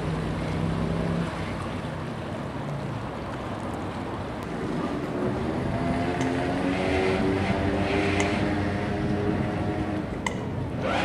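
Motor cruisers' inboard engines running slowly: a steady low engine hum, giving way about halfway to a nearer boat's engine idling as it moves into the lock.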